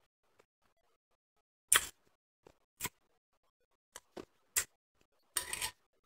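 Crisp crunches of soft, snowy crushed ice being chewed: a handful of separate short crunches, the loudest about two seconds in, and a quick run of them near the end.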